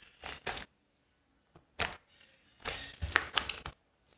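Under-activated slime being squeezed and stretched by hand, giving a few short sticky crackles and then a longer run of crackling about three seconds in.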